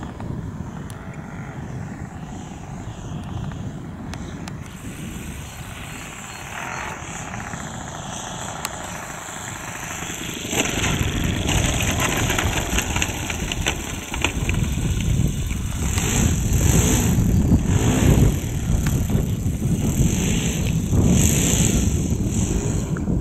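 Percival Provost model aircraft's engine and propeller. It is fainter while the model flies at a distance, then louder and coarser from about ten seconds in as it rolls on the grass and taxis closer, swelling and dipping several times with the throttle.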